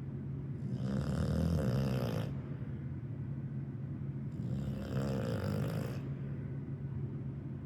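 Snoring that sounds like a chainsaw: two long rattling snores about three and a half seconds apart, with a low rumbling breath carrying on between them.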